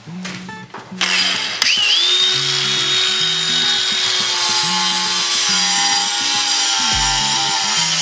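Stark CAG 1800 cordless angle grinder with a flap disc starting up about a second in, its whine rising quickly to a steady high pitch, then running steadily as the disc sands a wooden board. Background music with a bass line plays underneath.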